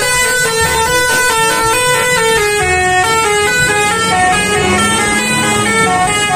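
A 'telolet' bus horn, a multi-tone horn playing a quick tune of stepping notes that carries on without a break.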